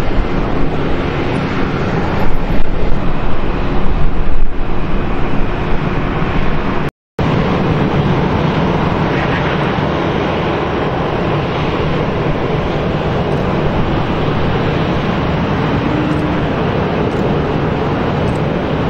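Boeing 737-500 jet engines running as the airliner rolls and taxis, a steady rumble with a low hum, with wind gusting on the microphone during the first few seconds. The sound cuts out for an instant about seven seconds in.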